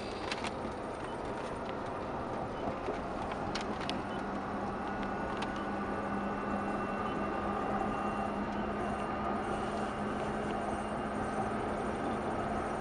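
Cabin noise of a pickup converted to run on a Baldor three-phase AC induction motor through an automatic transmission, as it drives up a highway on-ramp: steady road and tyre noise growing slowly louder as it gathers speed. A steady hum comes in about four seconds in, with a few light clicks before it.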